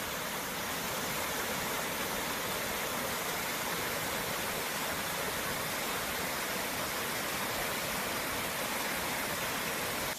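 Fast-moving water rushing, a steady, even hiss with no breaks.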